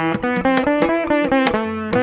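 Instrumental music: a plucked string instrument plays a quick melody of short, sharply attacked notes.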